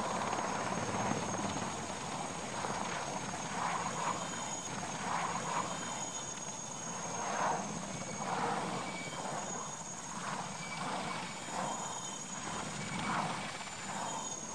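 Military transport helicopter hovering low: steady rotor and turbine noise with irregular rotor swells and a thin, steady high whine.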